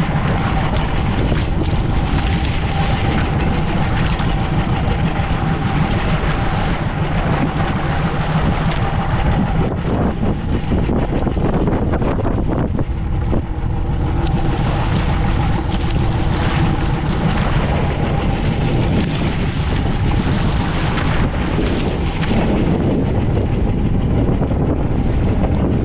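Small fishing boat under way at sea: its engine running with a steady drone, and wind buffeting the microphone.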